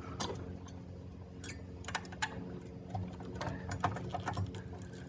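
Scattered light clicks and taps from hands handling parts in the tight space behind a car's headlight housing, over a steady low hum.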